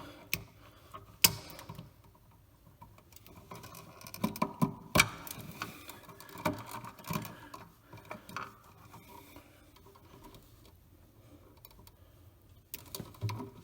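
Pliers clicking and scraping as they strip insulation off electrical wires, with the rustle of the stiff wires being handled: a string of sharp irregular clicks, quieter in the last few seconds.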